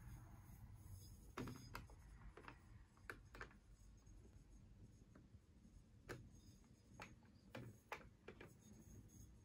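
Near silence: faint room tone with a low hum and about a dozen soft, scattered clicks.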